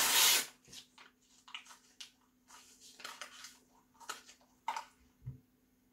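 A sheet of printed paper ripped loudly at the start, then paper being chewed and crinkled in the mouth in short, irregular crackles. A single low thump comes about five seconds in.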